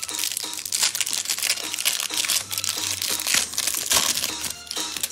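Plastic wrapping of a trading-card hanger box crinkling and crackling as it is torn open and handled: a dense, continuous run of sharp crackles.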